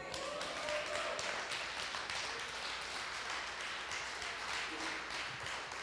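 Congregation applauding: a steady patter of clapping, much quieter than the preaching around it.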